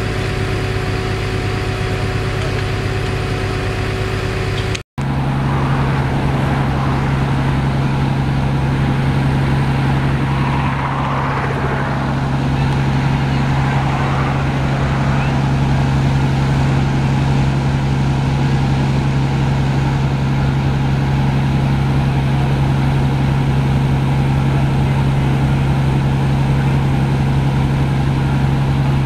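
Fire truck engine running steadily with a low drone. It drops out for an instant about five seconds in and then carries on at a slightly different pitch.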